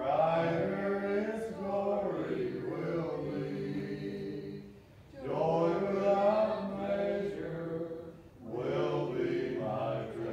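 Congregation singing a hymn a cappella, with no instruments, in sung phrases broken by short pauses for breath about five and eight seconds in.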